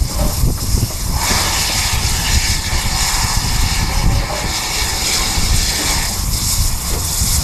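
Wind buffeting a microphone on a moving steam locomotive's tender over the low rumble of the running train. A steady hiss comes in about a second in and eases off near the end.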